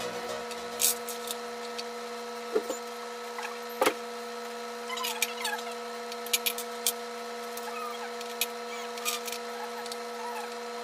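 Scattered light clicks and knocks, about eight, the two strongest about two and a half and four seconds in, over a steady electrical-sounding hum.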